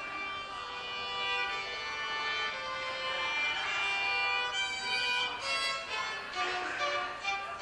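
Violin played by a child, a melody of held and moving bowed notes.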